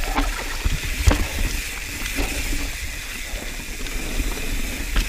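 A mountain bike riding fast down a dirt singletrack, heard from a camera mounted on the rider: tyres rolling over dirt and roots, wind rushing over the microphone, and the bike rattling, with a sharp knock about a second in.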